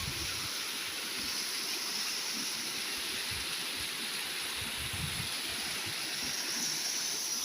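Waterfall water rushing in a steady, even hiss, with intermittent low rumbles underneath.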